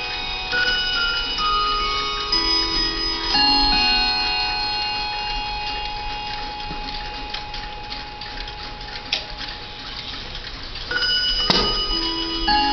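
Howard Miller 612-429 key-wound mantel clock chiming: a run of struck chime notes ringing and overlapping as they decay, with the clock ticking underneath. A single sharp knock about a second before the end, as the clock's glass door is shut.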